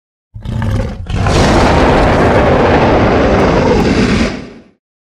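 Loud roar sound effect, like a monster or dragon: a short burst, then a longer roar starting about a second in that fades out near the end.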